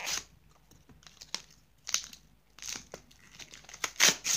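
Foil Pokémon booster pack wrapper crinkling in several short bursts as it is handled and opened, the loudest near the end.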